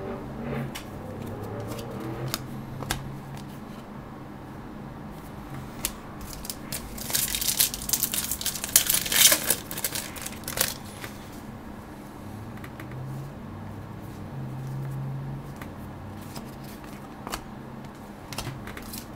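Trading card packs being handled: cards sliding and shuffling against each other, with scattered light clicks and a spell of foil wrappers crinkling and tearing open near the middle.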